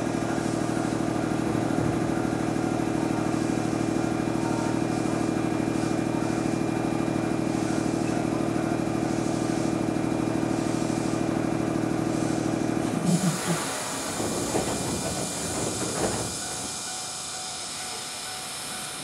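A standing 205 series electric train's equipment running with a steady hum. The hum cuts off suddenly about two-thirds of the way through, and hissing and a few sharp knocks follow.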